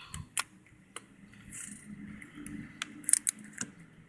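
Plastic clicks and rattles of a laptop keyboard being handled and seated back into a Dell Inspiron E1545, with a quick cluster of sharp clicks about three seconds in. A faint low hum runs underneath.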